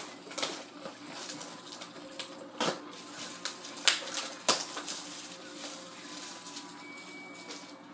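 Plastic wrap crinkling and cardboard tapping in irregular sharp crackles as a sealed box of Pinnacle hockey cards is unwrapped and opened.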